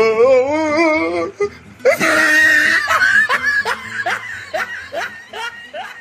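A man laughing hard: a long, high, wavering laugh, then a run of short 'ha' bursts, each falling in pitch, about three a second, fading away.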